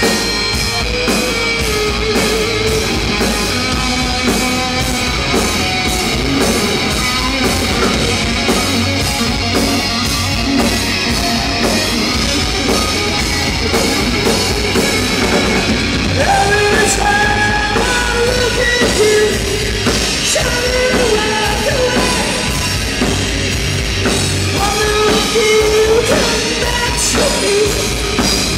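Hard rock band playing live: distorted electric guitars, bass guitar and a drum kit playing continuously, with a melodic line wavering over them from about halfway through.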